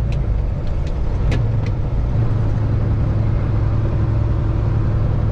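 Heavy-haul Kenworth truck's diesel engine running with a steady low drone, heard from inside the cab, with a few light clicks in the first two seconds.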